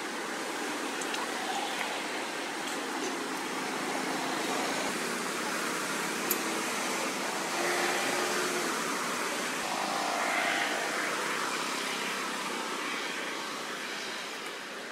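Steady outdoor background noise, an even hiss with faint brief sounds in it and one small click about six seconds in.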